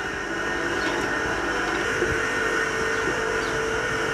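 Stove heating ghee in a karahi: a steady rushing noise with a faint, even hum under it.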